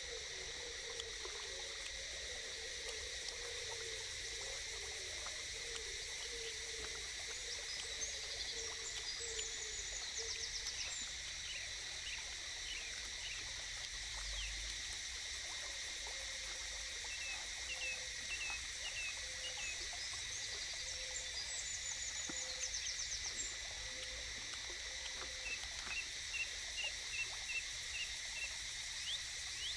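Forest ambience: a steady high-pitched insect drone, with scattered bird chirps and a wavering lower call that comes and goes. Near the end, a short chirp repeats about twice a second.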